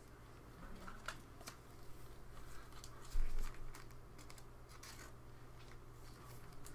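Trading cards and plastic card sleeves being handled: scattered light clicks and faint rustling, with one dull bump about three seconds in.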